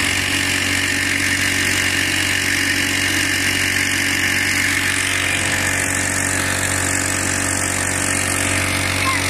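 Small Tomking 2 hp outboard motor running steadily under way, pushing the boat at an even throttle.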